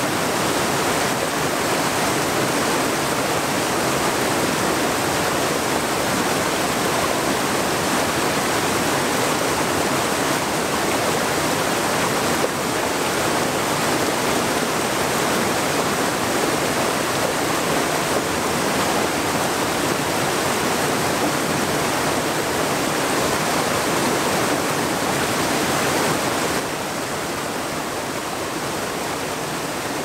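A rocky mountain stream rushing over small cascades, a steady loud water noise. About 26 seconds in it drops to a softer, duller rush.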